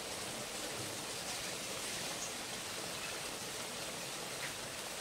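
Jackfruit in chili-and-turmeric broth boiling in a wok: a steady bubbling hiss.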